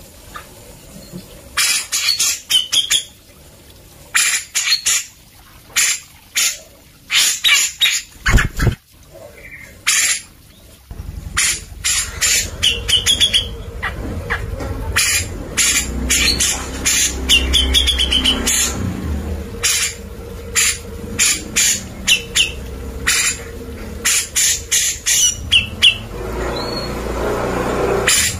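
Caged cucak jenggot (grey-cheeked bulbul) singing in quick, loud bursts of short, sharp notes mixed with brief gliding whistles, the groups repeated every second or so. A single low thump about eight seconds in, and from about eleven seconds a low steady rumble underneath the song.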